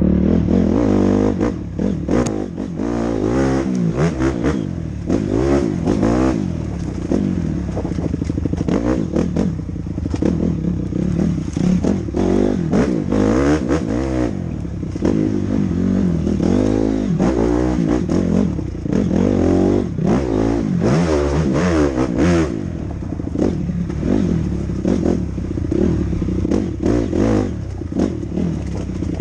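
Honda CRF250R's 250 cc single-cylinder four-stroke engine being ridden hard, its revs rising and falling over and over with throttle and gear changes, with frequent knocks and rattling from the bike over rough ground.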